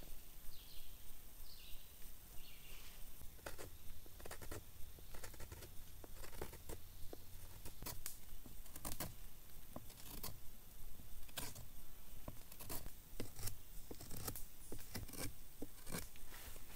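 Bushcraft knife shaving and carving the end of a wooden pole in irregular scraping strokes. A few bird chirps sound in the first three seconds.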